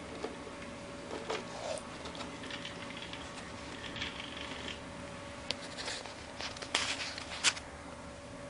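Plastic RC car body being handled and fitted onto the chassis: scattered light clicks and short rattles, the sharpest near the end, over a faint steady hum.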